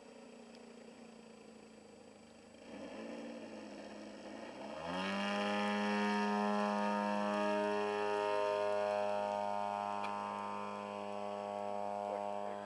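Radio-controlled model aeroplane's motor and propeller: faint at first, then rising in pitch as the throttle opens a few seconds in and holding a loud, steady high-revving tone.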